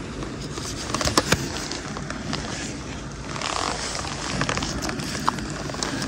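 Scattered clicks and scraping from fishing tackle and a small freshly caught fish being handled, over a steady outdoor hiss.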